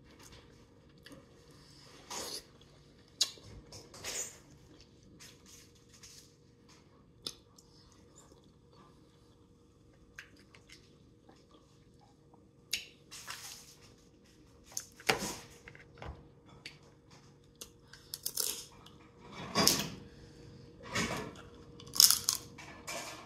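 Close eating sounds of boiled crab: chewing and lip smacks, with short cracks and crunches of crab shell bitten and pulled apart by hand. These come sparsely at first, then more often and louder, with the loudest crack near the end.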